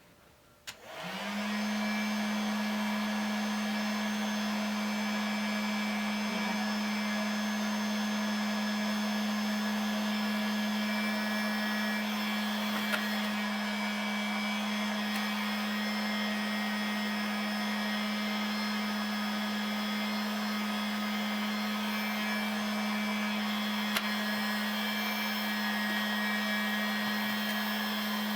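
Electric heat gun switched on about a second in, quickly spinning up, then running steadily with a fan-motor hum and rush of air while heating a hard acrylic/PETG watercooling tube to soften it for bending.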